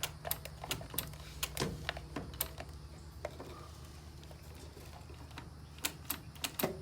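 Starter relay on a Tahoe 7000 diesel generator clicking repeatedly at irregular intervals without cranking the engine, the relay the owner blames for the no-start and suspects of a bad connection. A faint steady low hum runs underneath.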